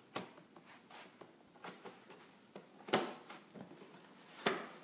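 Large cardboard toy box being opened and handled: scattered scrapes, rustles and clicks, with sharp knocks just after the start, about three seconds in, and near the end.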